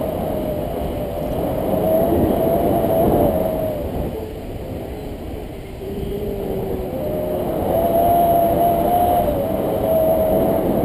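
Wind rushing over the action camera's microphone in paraglider flight: a steady loud rush with a thin wavering whistle that fades out midway and comes back about seven seconds in.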